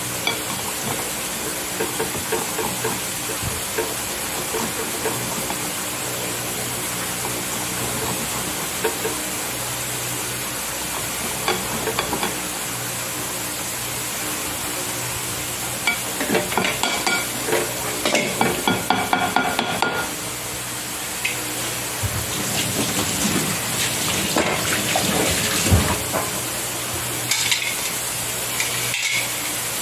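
A steady sizzling hiss runs under knife-and-bowl sounds as tomatoes are cut by hand. The clicks and scrapes come in clusters, busiest from about halfway through and again toward the end.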